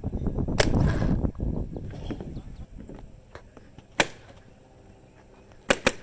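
Electropneumatic paintball marker (Warped Sportz Dark Angel LCD) firing single shots, each a sharp crack: one about half a second in, another about four seconds in, and a quick pair near the end. A low rumble fills the first second and a half.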